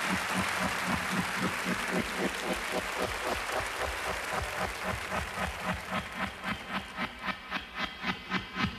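Studio audience applauding, the applause gradually settling into rhythmic clapping in unison, about three claps a second by the end.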